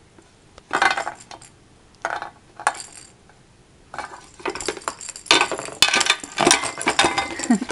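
Plastic toy ball knocked and banged against a metal muffin pan, clanking and clattering. A few separate knocks come first, then a busier run of clattering from about four seconds in.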